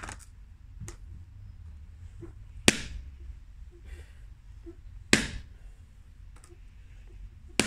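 Rusty club hammer striking a cast disc of Smooth-On Task 12 tooling resin set on a brick. There are three hard blows about two and a half seconds apart, each a sharp crack with a short ring, and a lighter knock at the start. The resin takes the blows without cracking, only scratching.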